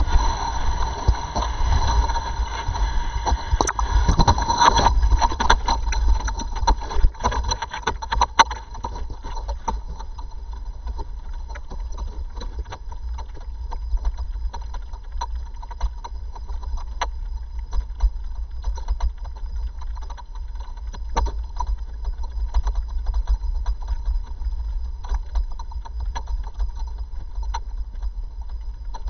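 Wind buffeting the onboard camera microphone of a descending space capsule: a rough low rumble with scattered clicks and rattles and a faint steady high tone. It is loudest for the first several seconds, then quieter and steadier as the capsule hangs under its drogue parachute.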